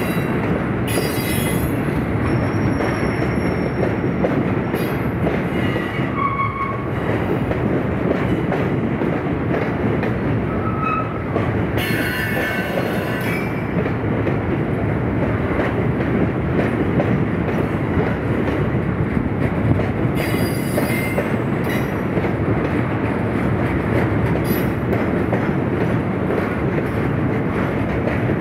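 A rail train's cars rolling past at close range: a steady rumble and clatter of wheels on track, with short high-pitched wheel squeals several times, about a quarter of the way in, near the middle and about two-thirds through.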